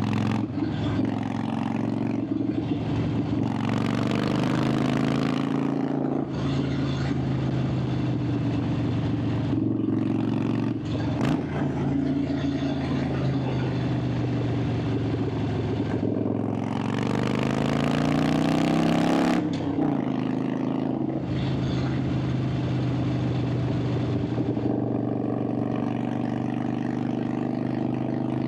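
Harley-Davidson Sportster 883's air-cooled V-twin engine and exhaust running under way at fairly steady revs. Twice the engine pulls harder and rises in pitch, the longer pull near two-thirds through, and each time it drops off sharply as the throttle closes or a gear is changed.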